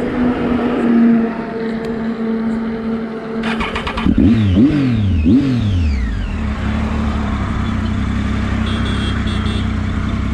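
Triumph Tiger motorcycle engine idling, then pulling away about four seconds in, revving up and dropping back three times as it shifts up through the gears, then running steadily at cruising speed.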